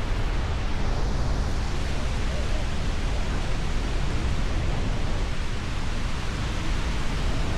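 Goðafoss, a wide horseshoe-shaped waterfall, roaring as a steady, even rush of falling water with a deep rumble underneath.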